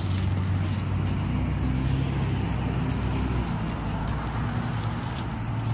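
Road traffic on a city street: cars driving past, a steady low rumble of engines and tyres.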